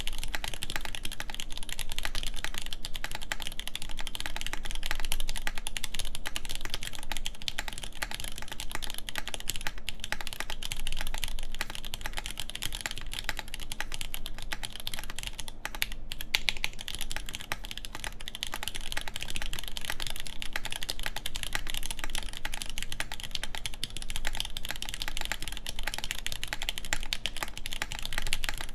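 Steady typing on an LZ Reborn Edition mechanical keyboard with Nixdorf MX Black linear switches, a full aluminium plate and OG Desko keycaps: a dense run of keystroke clacks, with a brief pause a little past halfway.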